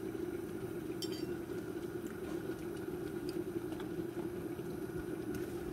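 A steady low kitchen hum, with a light clink of cookware about a second in.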